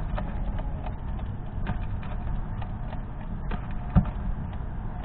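Fox squirrel rummaging in and cracking sunflower seeds right by the microphone: irregular small clicks and crunches, with one louder thump about four seconds in, over a steady low rumble.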